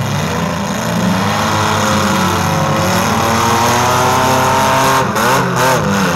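Engines of several compact demolition-derby cars revving hard together, their pitches rising and falling as the drivers work the throttle, with a quick run of up-and-down revs about five seconds in.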